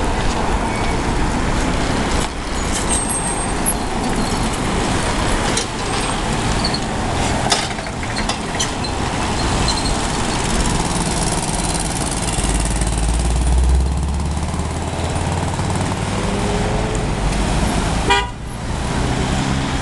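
Road traffic passing close by at a junction: cars and SUVs driving past, with engine noise and tyre rush on asphalt. A heavier low engine rumble builds about two-thirds of the way through.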